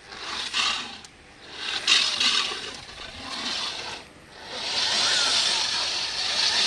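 Concrete core drill grinding into a concrete wall, a harsh scraping noise with no clear motor tone. It comes in three short surges, then runs steadily and louder from about halfway through.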